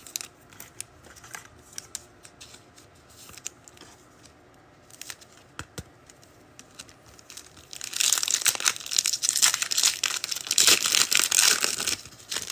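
Small clicks of cards being handled, then about eight seconds in a trading card pack wrapper is torn open and crinkled loudly for about four seconds.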